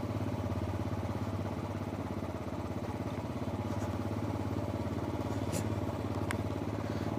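Motorcycle engine running steadily with an even, fast pulsing as the bike is ridden along at a gentle pace.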